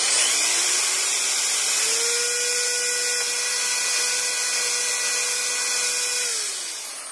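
Electric drill with a small bit boring a pilot hole through the back of a headlight housing: the motor whine rises as it spins up, holds steady, then drops away near the end as it winds down.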